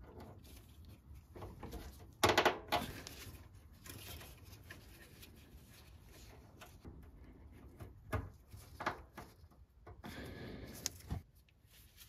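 Faint handling noise of gloved hands pushing wire connectors onto the terminals of a new furnace door switch: rubbing and scraping against the sheet-metal cabinet, a louder scrape about two seconds in, and a few sharp clicks later on.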